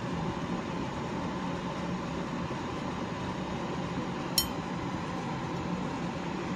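Steady drone of a ferry's engines and ventilation, heard inside the ship, with one short sharp click about four seconds in.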